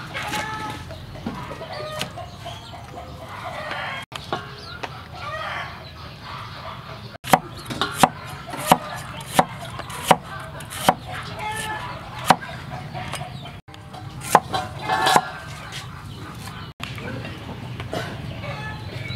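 Steel cleaver chopping on a wooden chopping board: a series of about nine sharp chops from about eight seconds in, about one or two a second. Chickens cluck and crow in the background throughout.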